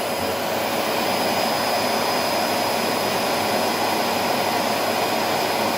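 Philips XD3100 vacuum cleaner running steadily, a constant rush of air with a few steady whining tones on top.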